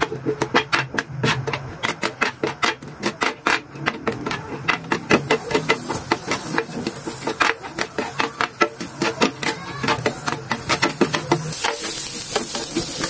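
A spatula scraping and tapping against a ridged grill pan while stir-frying julienned carrots in sesame oil, in quick irregular clicks several a second. A sizzling hiss grows louder near the end.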